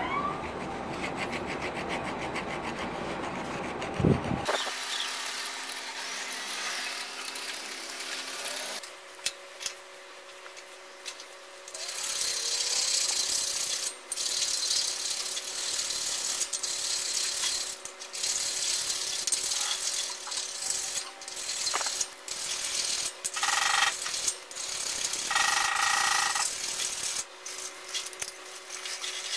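Hand file rasping back and forth over the steel of a rusty hatchet head clamped in a vise, stroke after stroke with short breaks between them.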